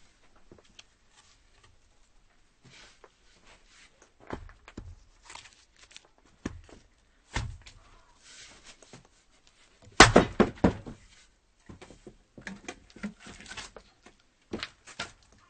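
Firewood being chopped with an axe: scattered knocks and thuds of the blade striking and splitting wood. The loudest is a quick cluster of several knocks about ten seconds in.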